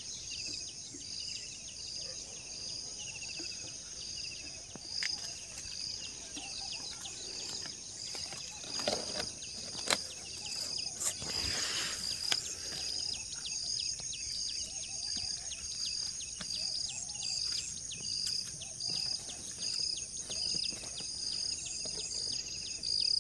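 Crickets and other insects calling steadily, one with a regular pulsing chirp a little over once a second, with short bird chirps. A brief rustle about eleven seconds in.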